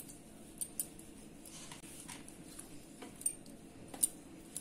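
Scattered faint clicks and clinks from a spoon and hand spreading fish masala over a layer of rice in a cooking pot. The sharpest click comes about four seconds in.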